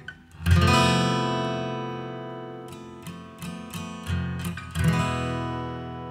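Background music on acoustic guitar: a strummed chord about half a second in rings out, a few single plucked notes follow, and a second chord is strummed near the five-second mark.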